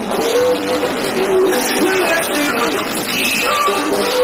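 Loud music with a sung melody played through a large truck-mounted DJ speaker stack during a soundcheck.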